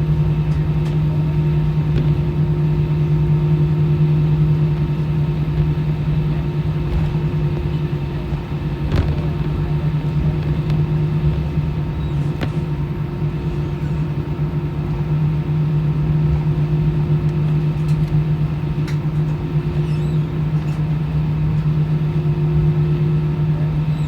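Jet airliner's engines heard from inside the cabin around takeoff: a steady low hum over a rumble.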